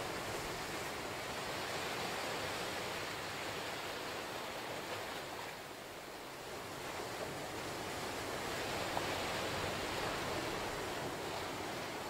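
Small ocean waves breaking and washing up a sandy beach between rocks: a steady hiss of surf that eases briefly about halfway through, then builds again as the next wave washes in.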